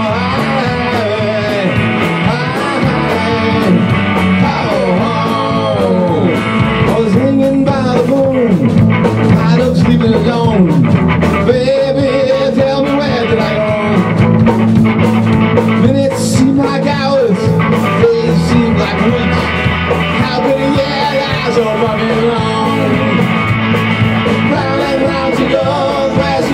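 Live rock band playing an instrumental break: a lead electric guitar line with bent notes sliding up and down over rhythm guitar and a steady drum beat.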